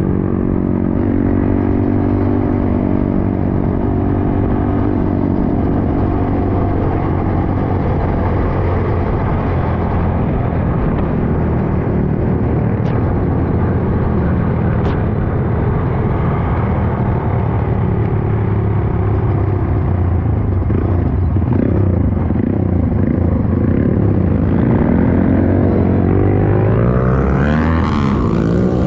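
Trail motorcycle engine running under way, its pitch rising and falling with the throttle, then climbing steadily as it accelerates near the end.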